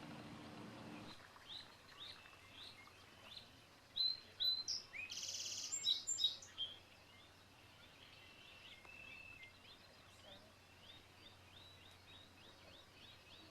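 Wild songbirds calling. Short high chirps come first, then a loud burst of calls with a harsh buzzy note about five seconds in, and near the end a fast run of repeated chirps.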